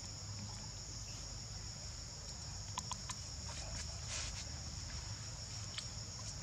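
Steady high-pitched drone of insects, with a few faint short clicks in the middle.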